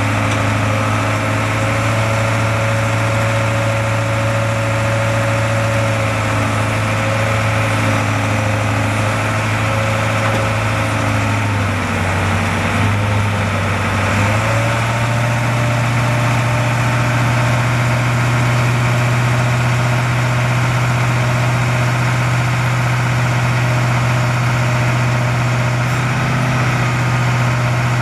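Caterpillar 3208 V8 diesel engine of a digger derrick truck running steadily while the hydraulic boom is worked. About halfway through, the engine's pitch dips and wavers for a couple of seconds, then settles slightly higher.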